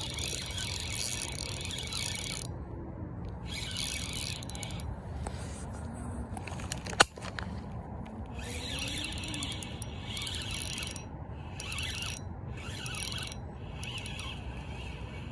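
Spinning reel cranked in short spells with pauses between, its gears rasping as line is wound in: a stop-and-go lure retrieve. One sharp click about seven seconds in.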